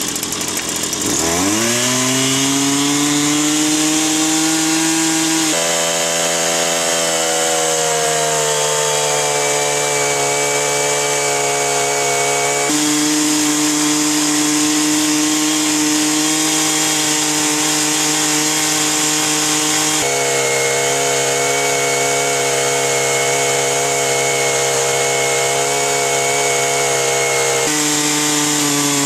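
A motor spinning up about a second in and then running steadily at high speed. Its pitch steps abruptly up or down a few times.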